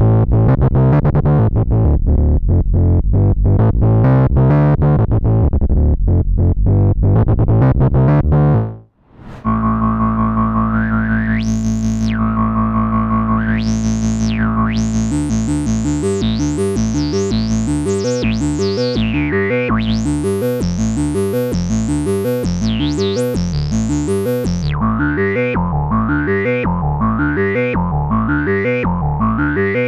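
Moog Subsequent 25 analog synthesizer playing sequenced patches. A fast sequenced pattern cuts off about nine seconds in. After a brief break comes a held low note with a resonant filter sweeping up and down, and from about halfway a rapid sequenced line with the resonant filter sweeping up again and again.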